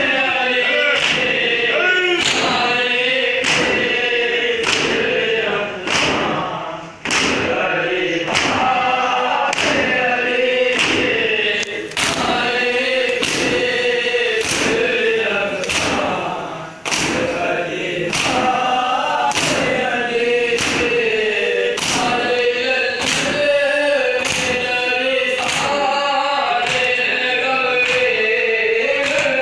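A group of men chanting a noha in unison, with rhythmic thumps of matam (open-hand chest-beating) about three every two seconds. The chant and beating drop briefly twice.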